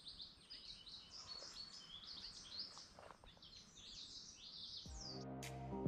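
Songbirds singing: a run of quick, high chirps, many notes overlapping. Background music fades in about five seconds in and grows louder.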